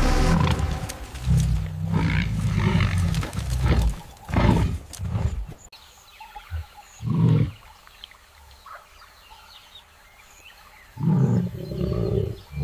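Wild animals roaring and growling in a run of loud calls, then a few short calls, a quiet gap of several seconds, and loud roaring again near the end.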